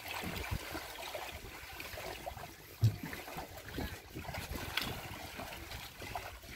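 Sea water lapping with wind on the microphone, and one short low thump about three seconds in.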